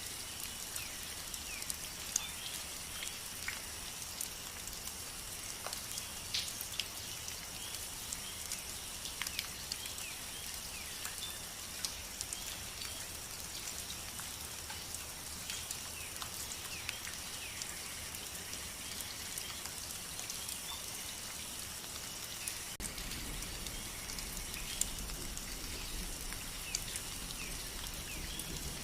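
Rain falling, with many scattered drop ticks over an even hiss and a steady high-pitched ringing underneath. A low rumble steps up abruptly about three-quarters of the way through.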